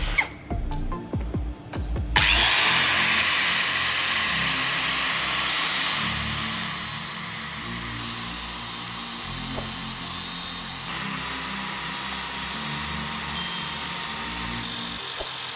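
A handheld power tool working metal, starting about two seconds in and running steadily, with small shifts in level as the work goes on.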